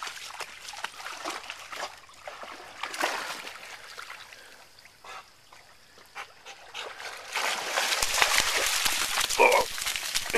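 A dog splashing and wading in a shallow muddy creek, water trickling and sloshing around it. In the last few seconds a loud spray of water as the wet dog shakes itself off close by.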